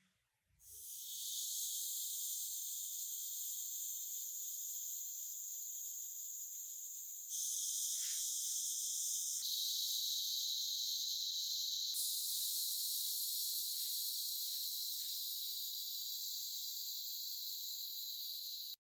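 A steady high hiss of a pressurised spray, starting just after the beginning and changing tone abruptly three times before stopping suddenly.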